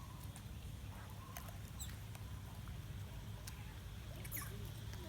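Monkeys making faint high squeaks, two short squeals falling in pitch about two seconds and four and a half seconds in, among scattered light clicks and a steady low rumble.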